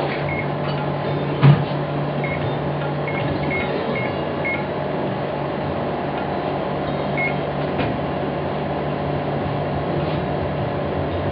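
Steady electric hum of a Cerchar abrasivity test machine, with its steel stylus pin set on the rock sample. A single sharp knock comes about a second and a half in, and faint short high ticks sound now and then.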